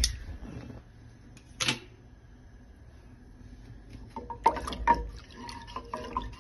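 Wooden spoon stirring a thin ragi porridge in a metal saucepan. There is a single sharp knock about two seconds in, and from about four seconds on a busy run of scraping, tapping and liquid sloshing as the spoon works the pan.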